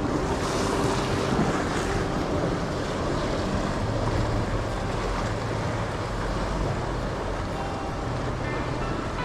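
Sea surf washing on a rocky shore with wind buffeting the microphone, a steady rushing noise.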